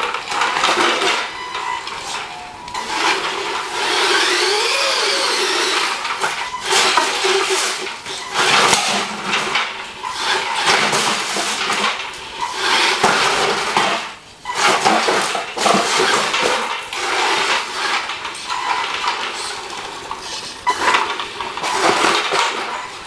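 Tamiya TL-01 radio-controlled truck's 540 brushed electric motor and gearbox whining in repeated bursts as the throttle is opened and released, its big tyres running on a tile floor. Around four to six seconds in the whine sweeps up and down in pitch.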